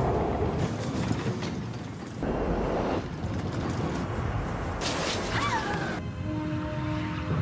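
Film soundtrack of a jet airliner's rough crash landing: continuous rumbling noise mixed with music, with a brief falling squeal about five seconds in.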